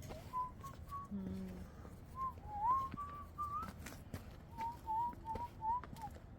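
A person whistling a tune: a single clear tone in short, gliding notes, in three phrases with brief pauses between them. Faint clicks and knocks sound around it.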